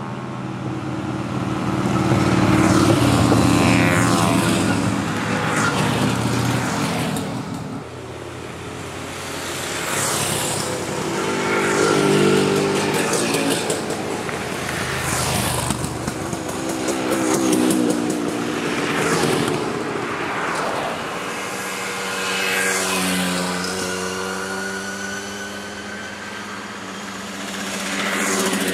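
A line of old motorcycles passing one after another, each engine growing louder as it approaches and dropping in pitch as it goes by, with several pass-bys overlapping.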